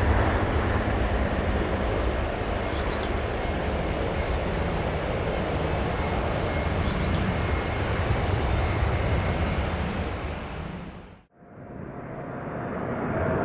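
Boeing 747-400F freighter's four jet engines at takeoff power, a loud steady roar as it lifts off and climbs away. The roar fades out about eleven seconds in. Near the end the engines of an approaching Boeing 747-8F rise in with a steady whine.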